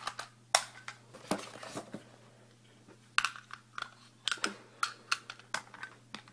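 Irregular sharp clicks and knocks of a full-metal 1911-style airsoft spring pistol and its magazines being handled, held close to the microphone.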